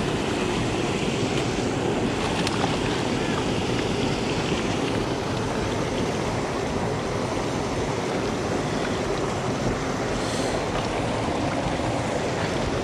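Steady rush of a small stream's water running over rocks and pouring over a low dam spillway.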